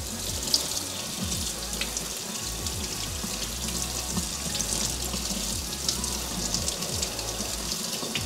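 Kitchen faucet running steadily, its stream splashing onto the leather toe of a hiking boot held under it and spattering into a stainless steel sink.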